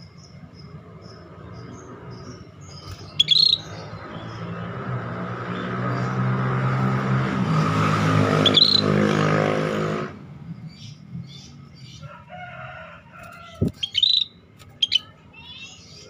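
Caged scaly-breasted bulbul (cucak bersisik) giving short, sharp chirps: four loud ones, about three, eight and a half, fourteen and fifteen seconds in, with fainter chirps between. Under them runs a low steady hum and a broad noise that builds for several seconds, then stops suddenly about ten seconds in.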